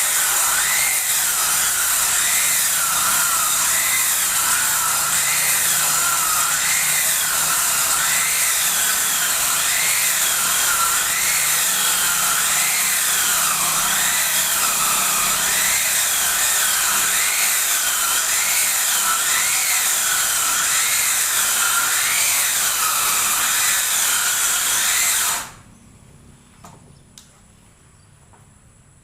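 Circular saw machine ripping a wooden plank lengthwise, its blade whine rising and falling in pitch about once a second as it cuts. The sound cuts off abruptly near the end, leaving a couple of faint clicks.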